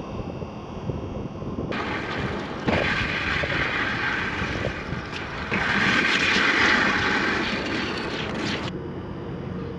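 Wind buffeting the microphone, with a louder hissing stretch for most of the middle that cuts in and out sharply.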